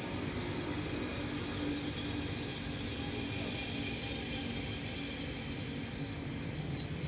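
Steady low rumble of distant engines with a faint hum, unchanging throughout; a couple of short high chirps near the end.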